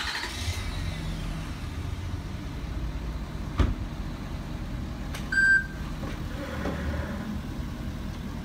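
Truck engine running with a low steady rumble as it drives past towing a trailer. A single knock about three and a half seconds in, and a short high beep about five seconds in.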